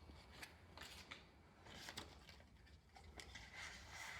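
Faint crackles and ticks of paper backing being peeled away from vinyl lettering on application tape, a few separate clicks against near silence.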